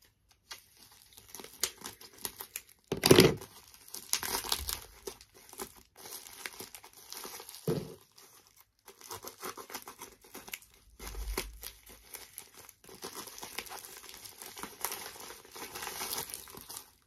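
Plastic packaging bag being handled, crinkled and torn open by hand, with one louder crackle about three seconds in.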